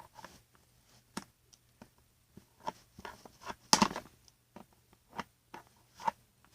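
Scissors and toy packaging being handled: a string of small clicks and taps, with one louder rustle nearly four seconds in.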